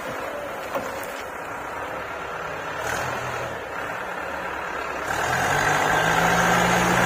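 Backhoe loader's diesel engine running steadily, then revving up and growing louder about five seconds in.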